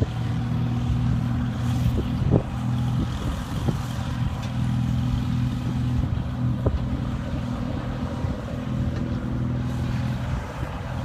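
A vehicle engine running steadily at a constant pitch, with a few light knocks.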